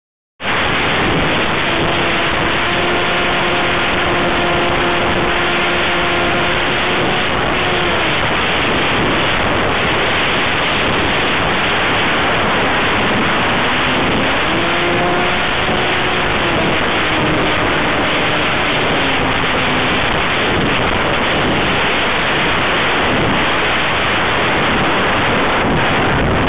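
Loud, steady rush of high wind across the microphone of a camera carried on an RC plane. Through it the plane's electric motor whines twice, rising and falling in pitch with the throttle.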